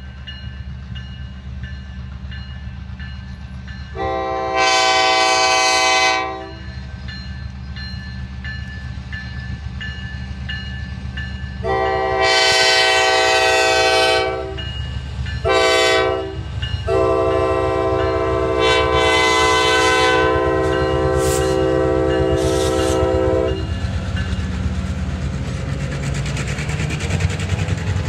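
Freight train led by two EMD GP9 diesel locomotives passing, sounding the grade-crossing signal on the air horn: two long blasts, one short, then a long one held for about seven seconds. Under the horn the locomotives' non-turbocharged 567 engines rumble steadily, working hard. Near the end the freight cars rattle past.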